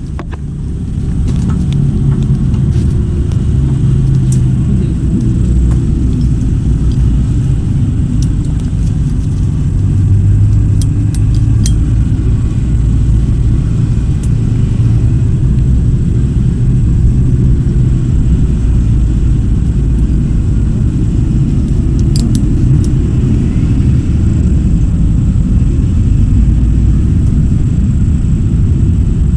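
An engine running steadily, its sound sitting low and even with no clear hammering strokes.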